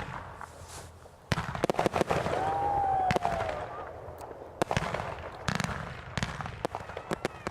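Consumer fireworks going off: a quiet first second, then a dense run of sharp bangs and crackling from about a second in, followed by scattered single reports.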